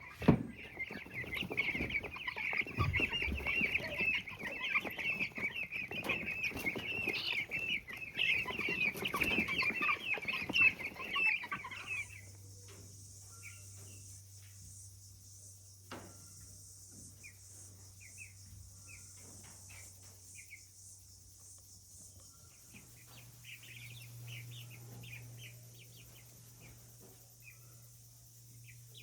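Baby chicks cheeping constantly as a flock, with scratching and rustling in wood shavings. About twelve seconds in, it drops suddenly to scattered, fainter cheeps over a low steady hum and hiss.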